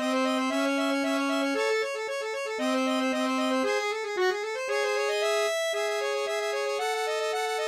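Instrumental background music: a melody moving over low held notes.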